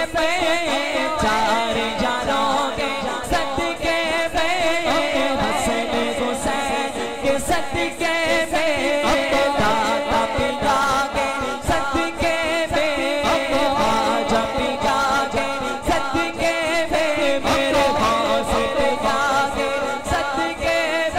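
A man singing a naat, an Urdu devotional song in praise of the Prophet, in a long, wavering melismatic line with echo added to the voice. A rhythmic backing pulses steadily underneath.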